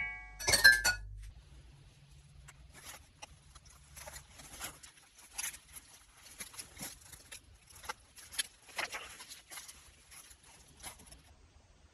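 A wooden spoon knocks twice on an enamelled cast-iron pot, ringing briefly. Then comes a steady walk of footsteps crunching through dry leaf litter and dead stems, about two steps a second, stopping shortly before the end.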